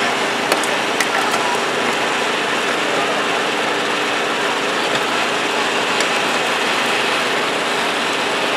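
Engine-driven hydraulic pump unit of a car-rescue set running steadily as it powers a hydraulic spreader forcing apart a car's doors. There are a few sharp clicks in the first second.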